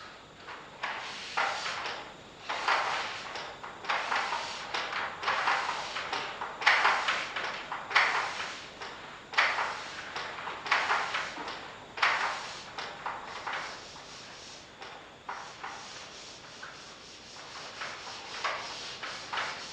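A hand-held eraser wiped back and forth across a chalkboard, making repeated rough rubbing strokes about once or twice a second. The strokes grow softer in the last third.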